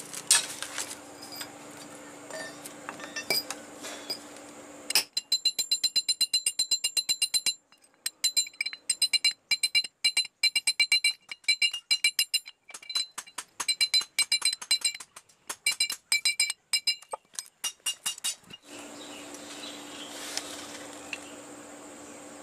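Hammer tapping on a metal ferrule in quick runs of ringing metallic strikes, several a second, with short pauses between runs. The strikes shape the ring for a golok handle. Before and after the tapping there is only a steady low hum with a few light clicks.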